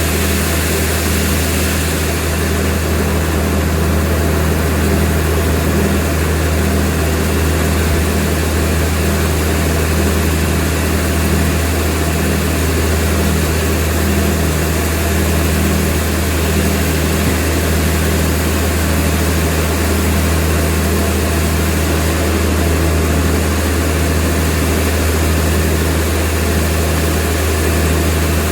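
Sawmill machinery running steadily, with a loud, constant low hum.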